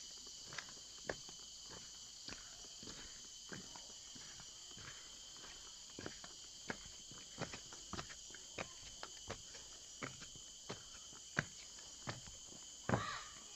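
Steady high-pitched drone of tropical forest insects, with irregular footsteps crunching on leaf litter and twigs. A louder rustle comes near the end.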